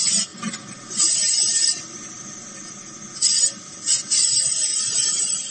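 Bench drill running, its 10 mm twist drill cutting into a metal workpiece cooled with water. A steady motor hum runs under a harsh scraping hiss that surges several times.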